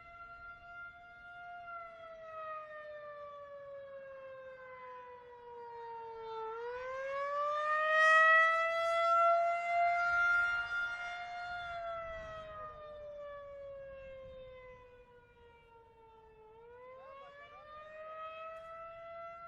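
Outdoor tornado warning siren sounding a slow wail during a routine test. Its pitch slides down for several seconds, then climbs back up twice. The siren swells to its loudest about halfway through and fades again.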